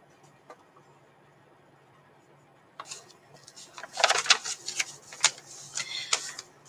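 Paper rustling and crackling as the page of a hardcover picture book is turned, starting a little before halfway through and going on in short bursts.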